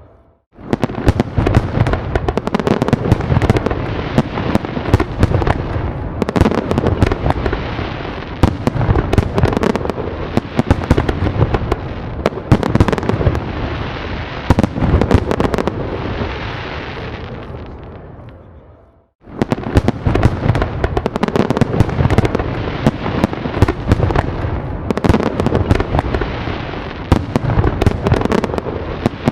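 Fireworks bursting in a dense, continuous barrage of sharp cracks and crackle over deep booms. It fades away near the middle, drops out for a moment, then starts again abruptly.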